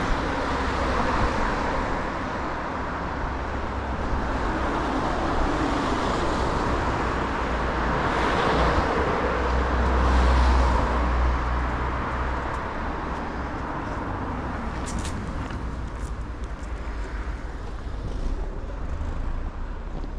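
City street traffic: a steady wash of road noise, with a vehicle growing louder and passing about halfway through. A few short clicks come about three quarters of the way in.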